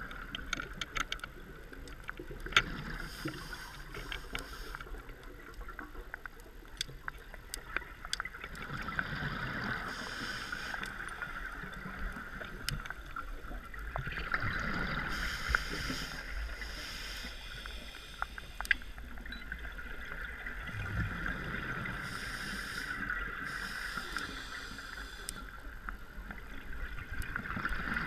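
Scuba diver breathing through a regulator underwater: a hissing inhale and a bubbling exhale repeat every several seconds, with scattered faint clicks throughout.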